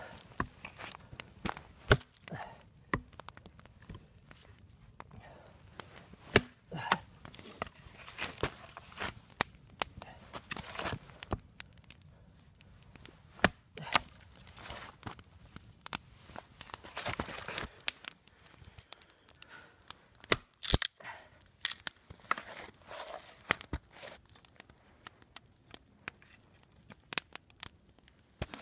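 Fiskars hatchet chopping and splitting small branches into kindling on a log: irregular sharp knocks, a few strokes at a time, with wood tearing apart and rustling between strokes.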